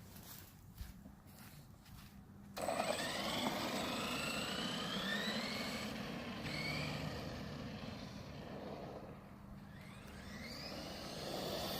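Redcat Earthquake 8e RC truck's electric motor whining as the truck drives. The whine starts suddenly about two and a half seconds in and rises in pitch several times as it accelerates.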